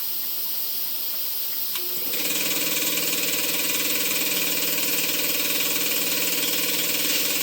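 A soft hiss, then about two seconds in a motor-driven machine starts and runs on steadily.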